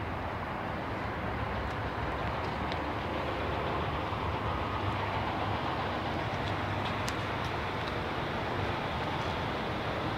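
Steady low rumbling noise, with a few faint ticks.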